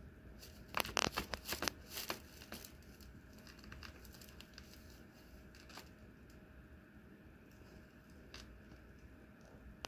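Fabric cat play tunnel rustling as a cat moves about inside it: a quick run of sharp rustles about a second in, then only a few faint scattered ticks.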